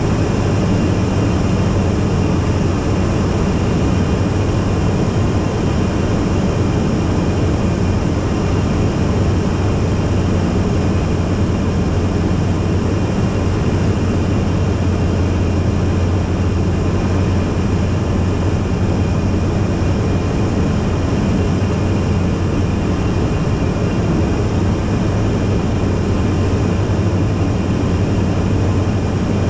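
Single-engine Robin light aircraft in cruise flight, heard from inside the cockpit: a steady, unchanging drone of piston engine and propeller.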